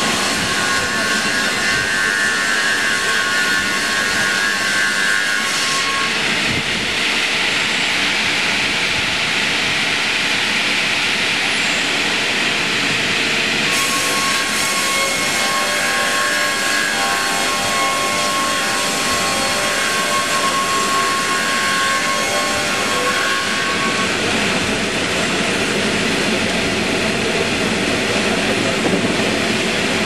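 DKP6 double-blade circular sawmill sawing lengthwise through a log. The saw noise is loud and steady, with a high whine whose pitch shifts a few times as cuts change.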